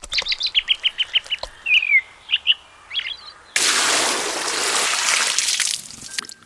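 Birds chirping: a quick run of about ten short chirps, a falling note, then a few paired calls. About three and a half seconds in, a loud steady rushing hiss takes over for about two seconds and stops suddenly.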